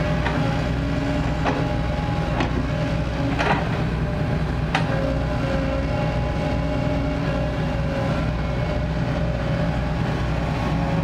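Kobelco SK140 hydraulic excavator running steadily, its diesel engine humming under a steady hydraulic whine. About five sharp knocks come in the first five seconds.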